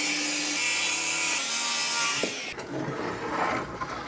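Bosch 18V cordless circular saw ripping through a plywood board, a steady high whine and hiss that stops suddenly about two and a half seconds in as the cut finishes. Quieter rubbing and scraping of the wood follows.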